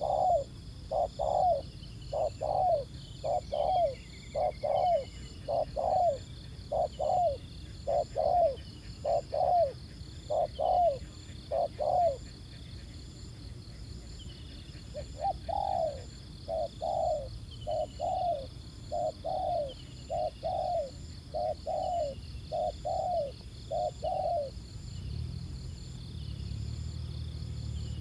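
Spotted dove cooing in a fast run of short repeated coos, about one or two a second. It breaks off for about three seconds midway, resumes, and stops a few seconds before the end.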